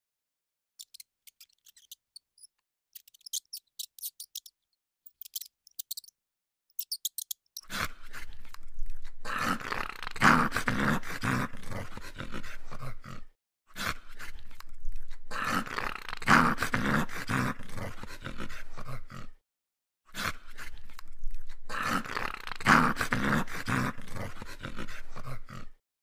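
A dog sound effect, growling and barking, in a clip of about six seconds played three times with short gaps between. It is preceded by a few seconds of faint, scattered high ticking.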